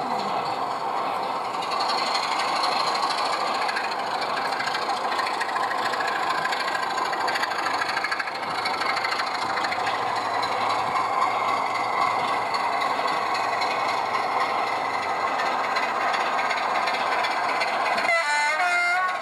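OO gauge model of a BR Class 25 diesel locomotive hauling its coaches along the track, a steady running noise throughout. A short warbling tone comes in near the end.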